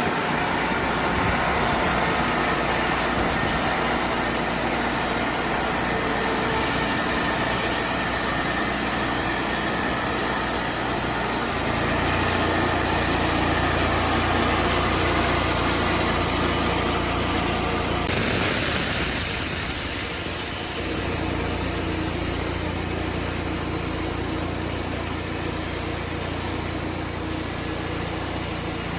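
Sawmill running steadily under load, its engine and blade cutting through a red oak log. The sound changes abruptly about two-thirds of the way through.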